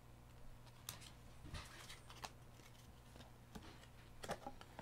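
Faint, scattered rustles and soft taps of trading cards being handled and set down, over a low steady hum.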